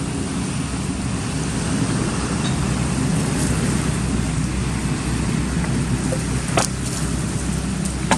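Steady low rumbling noise, with a sharp click about six and a half seconds in.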